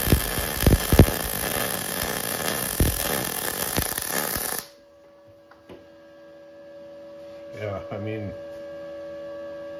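Arc Captain MIG 200 wire-feed welding arc crackling with sharp pops as it lays a bead, stopping suddenly about four and a half seconds in. A quieter steady hum follows.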